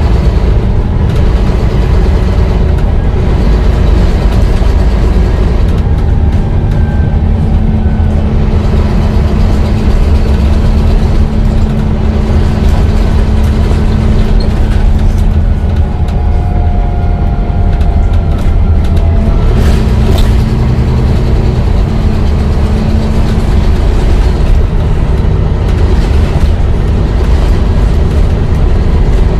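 Volvo B9TL double-decker bus running, a loud steady low engine rumble with a constant drone and faint shifting whines about halfway through.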